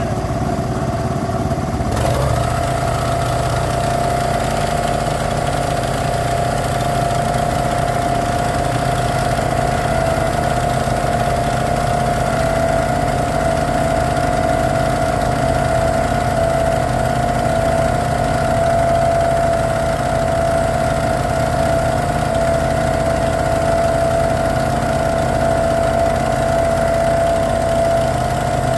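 An engine running steadily at an unchanging pitch, with a click about two seconds in after which its whine grows stronger.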